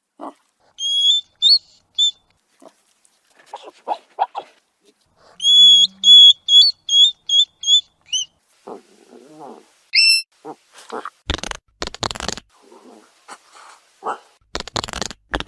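Hedgehog vocalising: groups of short, high-pitched squeaks, then from about eleven seconds in a run of rapid, noisy snuffles and huffs.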